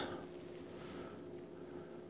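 Quiet room tone with a faint steady hum.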